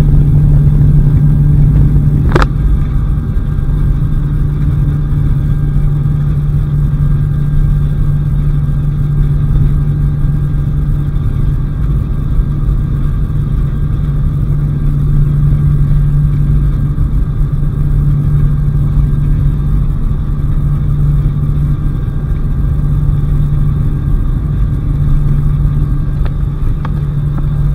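Jump plane's engine droning steadily in flight, with wind rushing past the open door, heard from inside the cabin. A single brief click about two seconds in.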